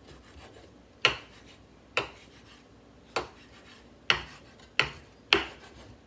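A cooking utensil knocking against a pot while stirring: about six sharp knocks roughly a second apart, each with a short ring, with faint scraping between.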